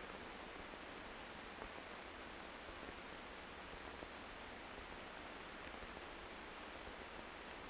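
Steady low hiss with nothing else in it: the background noise of an old film soundtrack.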